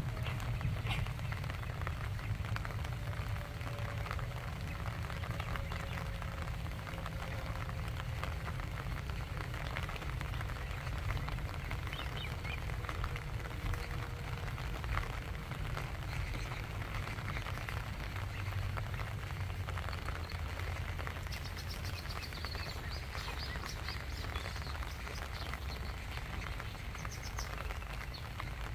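Rain falling on open lake water: a steady patter of drops over a low rumble. Faint, brief high bird chirps come about two-thirds of the way in and again near the end.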